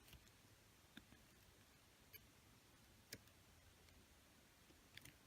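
Near silence, with about four faint, short clicks of small phone parts and repair tools being handled.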